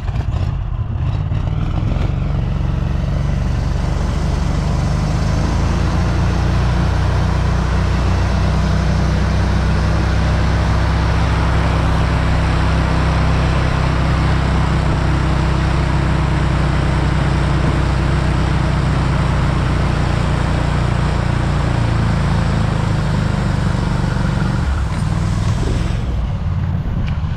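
Buran snowmobile's two-stroke engine running steadily under way, easing off near the end.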